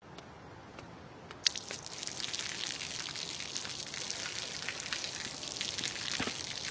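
A thin stream of water falling from an overhead pipe and spattering onto the pavement: a quiet background at first, then a sharp click about a second and a half in and a steady patter of drops and splashes.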